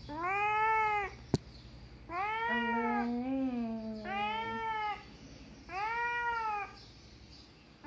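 A domestic cat meowing four times, each meow rising then falling in pitch, about every one and a half to two seconds. A lower, longer wavering tone runs under the second and third meows, and a single sharp click sounds about a second and a half in.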